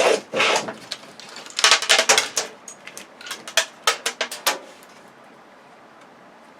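Metal parts of a TV being dismantled clinking and clattering: a quick run of sharp clicks and knocks that stops about two-thirds of the way through.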